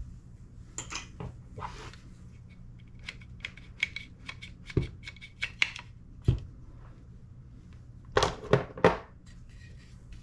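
Small metal parts of an airsoft gas blowback rifle clicking, tapping and scraping as they are worked out during disassembly. A run of quick light ticks comes in the middle, with a few sharper knocks, and a louder scraping near the end.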